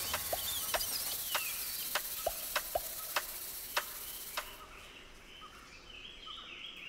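Forest ambience: a high insect hiss with bird twittering and short chirps, and a run of sharp clicks roughly every half second. The hiss and clicks stop about four and a half seconds in, leaving quieter bird calls.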